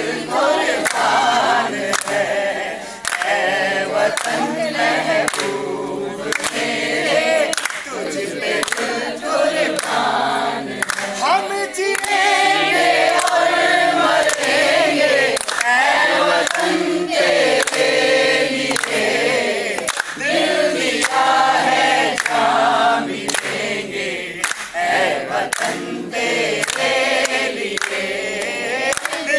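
A mixed group of adults singing a Hindi song together in unison, with hands clapping along.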